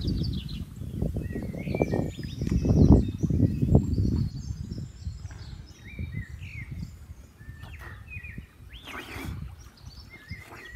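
Small birds chirping again and again over a low, uneven outdoor rumble. The rumble is loudest in the first four seconds and then eases off. A short rushing sound comes about nine seconds in.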